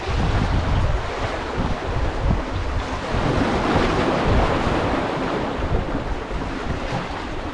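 Strong wind buffeting the microphone over the steady wash of waves breaking against a sea wall.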